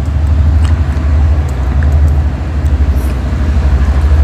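Steady low rumble that pulses several times a second, with a few faint clinks of steel bowls and plates.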